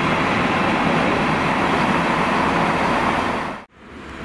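Freight train of sliding-wall box wagons rolling past, a steady loud rush of wheels on rail. It breaks off abruptly near the end, leaving a quieter background noise.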